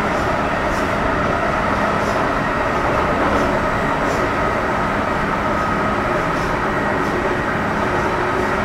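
Metro Cammell M-Train (CT-stock car C453) running at speed, heard from inside the carriage: a steady rumble and rail noise with thin, steady whining tones from its GEC GTO chopper traction equipment.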